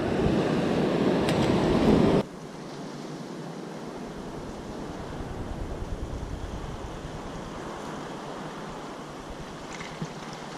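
Ocean surf washing over intertidal rocks with wind on the microphone, loud and close for about two seconds, then dropping suddenly to a softer, steady wash of distant surf and wind.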